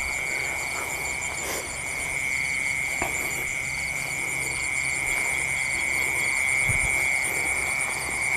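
Night chorus of crickets and other insects: one steady high trill with rapid rhythmic chirping above it, and frogs calling low underneath in a repeating pattern.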